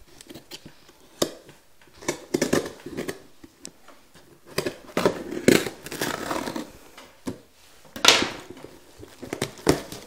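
A cardboard shipping package being cut and pried open by hand: irregular scrapes, taps and rustling, with a sharper rasp about eight seconds in.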